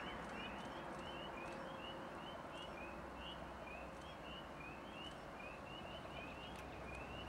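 A chorus of small animals calling: many short rising peeps repeating several times a second, over a faint low rumble from the distant approaching VIA Rail train.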